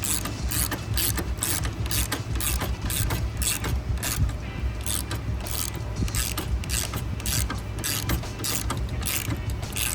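Ratchet wrench with a 22 mm socket clicking in a steady rhythm, about two to three clicks a second, as a nylock nut is tightened down.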